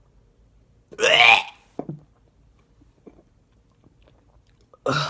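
A man chewing a mouthful of raw cactus and struggling to swallow it. A loud, strained vocal sound with wavering pitch comes about a second in, and a second loud, breathy vocal sound comes near the end.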